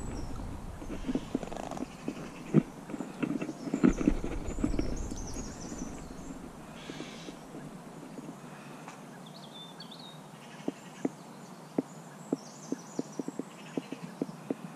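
Low thumps and rumble for the first few seconds, then a run of irregular sharp clicks, a few a second, with faint high chirps scattered through.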